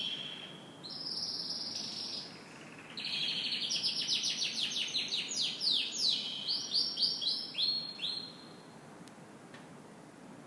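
Domestic canary singing: fast rolling trills of short repeated notes, with a steadier held phrase about a second in. The song stops a little after two-thirds of the way through.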